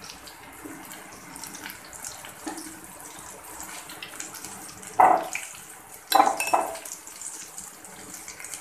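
Egg and gram-flour pakoras deep-frying in hot oil, a steady crackling sizzle. A metal spoon clatters against the pan about five seconds in and again, with a brief ringing, a second later.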